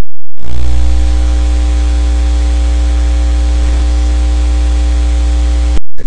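A loud, steady electrical buzz with hiss and a strong low hum. It starts suddenly about half a second in and cuts off just as suddenly shortly before the end, like a glitch on the recording.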